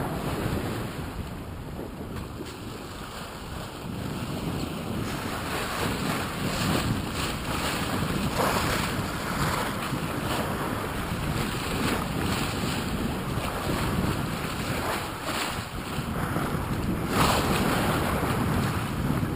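Wind buffeting the microphone and water rushing along a sailboat's hull while under way, with louder surges about eight seconds in and again near the end.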